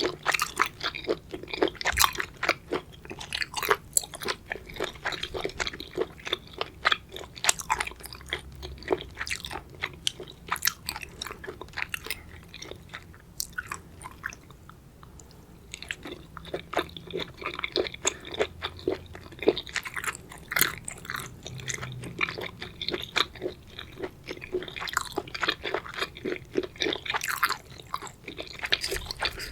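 Close-miked chewing of seafood: rapid crunchy, wet bites and chews, easing off briefly about halfway through.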